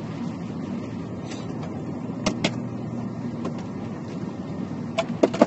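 Steady low hum in a parked car's cabin, likely the engine idling, with two sharp clicks a little over two seconds in and a quick cluster of clicks near the end.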